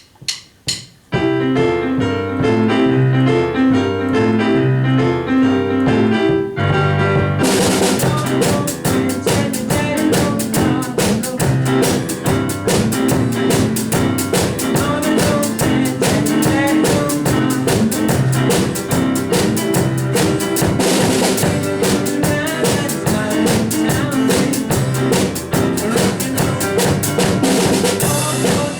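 Small rock band playing live: a few clicks, then piano, guitar and bass start the intro, and a drum kit with cymbals joins about seven seconds in, the whole band then playing together.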